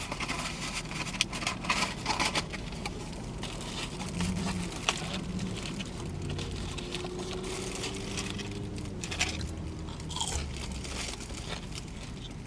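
Takeout food packaging being handled: scattered paper rustles, crinkles and light clicks over a low background hum.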